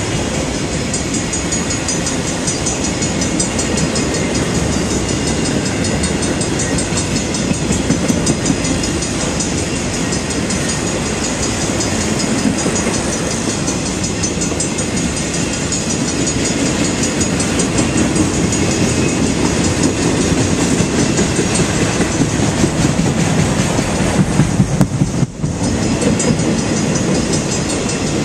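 Freight train cars rolling past at close range, their wheels clacking steadily over the rail joints. The sound drops out briefly near the end.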